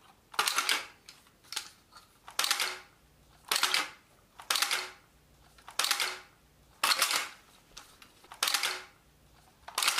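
3D-printed FMG-9 gel blaster replica being folded open and shut by hand: a series of about eight sharp plastic clacks, roughly one a second, as the folding body swings and latches.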